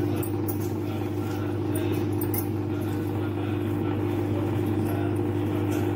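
A steady low hum throughout, with faint irregular soft squishing and crackling from a bare hand kneading mashed potato and spices in a steel bowl.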